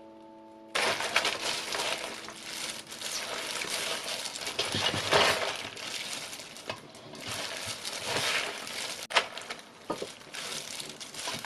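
Salted napa cabbage, garlic chives and red-pepper seasoning paste being tossed and rubbed together by hand: irregular wet squishing and crinkling of the leaves, starting about a second in.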